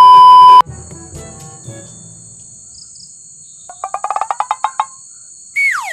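A loud, steady test-tone beep like the one played over TV colour bars, lasting about a second at the start. Then a steady high drone of crickets, a quick run of chirps about four seconds in, and a falling whistle-like glide near the end.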